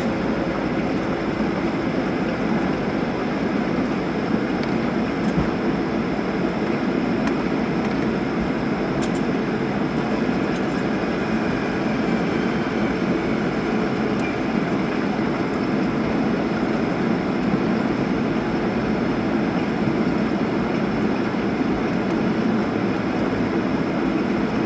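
Steady rumble and engine hum inside the cabin of a Boeing 737 rolling on the ground after landing.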